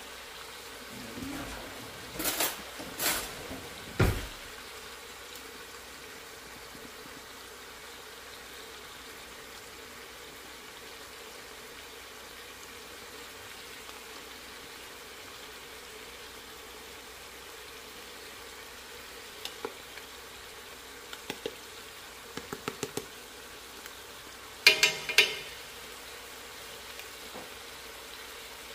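Oxtails and vegetables sizzling steadily in a cooking pot, a constant even hiss. Over it come a few sharp clanks about two to four seconds in, a run of light clicks past the middle, and a louder clatter near the end.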